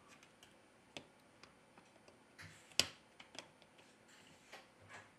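Faint, scattered clicks and ticks of small repair tools against a smartphone's internal parts as the motherboard screws come out. The sharpest click comes a little under three seconds in.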